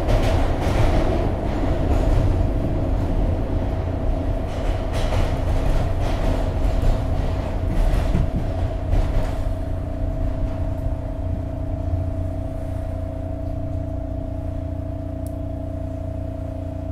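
SEPTA Market–Frankford Line subway car running in a tunnel, its wheels and car body rumbling and rattling. About ten seconds in, the noise eases to a quieter steady hum as the train slows into a station.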